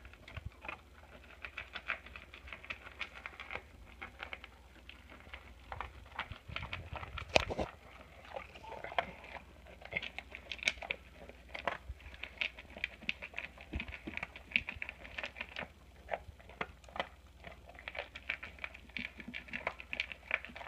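Dog eating quickly from a bowl: fast, irregular crunching and clicking as it chews and gulps its food, with one louder knock about seven seconds in.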